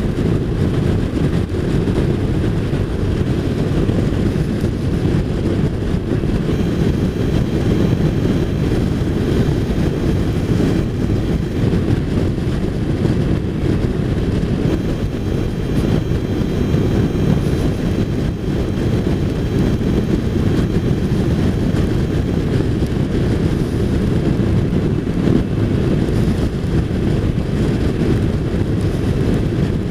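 Touring motorcycle cruising on a wet road: steady wind rush and road noise with the engine beneath it, heaviest in the low end.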